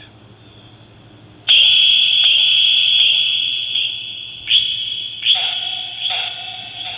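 Electronic tones from a ghost-hunting spirit-box app played through a phone speaker: a loud, steady high tone starts suddenly about a second and a half in and slowly fades, then three more tones strike in quick succession near the end.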